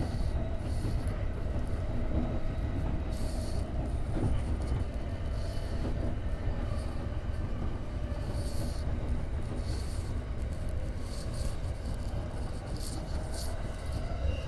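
Electric commuter train running along the line, heard from inside the leading car: a steady low rumble of wheels on rails with a faint steady drone, and brief bursts of higher hiss every second or two.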